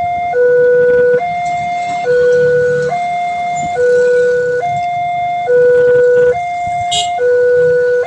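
Railway level-crossing warning siren sounding an electronic two-tone alarm that alternates steadily between a low and a higher note, each held just under a second, signalling an approaching train.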